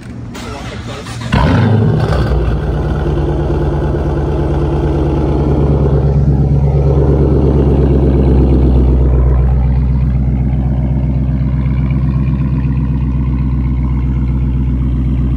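Dodge Challenger R/T's 5.7-litre HEMI V8 remote-started through newly fitted quad exhaust tips. The starter cranks for about a second, the engine catches with a loud flare, then settles into a steady high idle that eases slightly in the second half.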